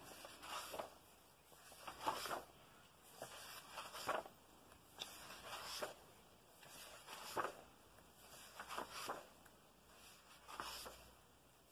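Pages of a large paperback colouring book being turned by hand: a soft paper rustle every second or two.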